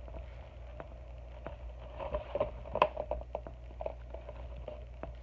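Cardboard box being handled and turned over in the hands: scattered light taps and knocks, most of them about two to three and a half seconds in, over a steady low hum.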